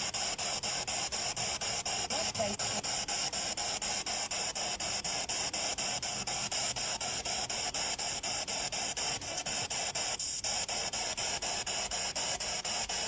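Spirit box radio scanner sweeping through stations: steady static hiss chopped by a rapid, even pulse as it jumps from channel to channel, briefly dropping out about ten seconds in.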